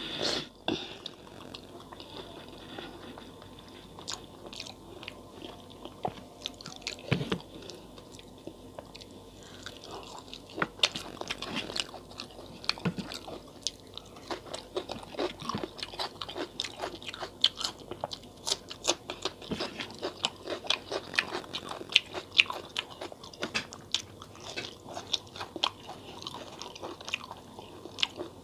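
Close-miked chewing and mouth sounds of a person eating rice mixed with dal by hand, with many sharp clicks that grow busier from about ten seconds in.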